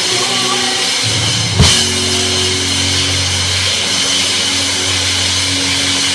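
Live gospel band heard from the drum kit: a constant wash of cymbals over sustained low bass notes, with one loud crash hit about a second and a half in.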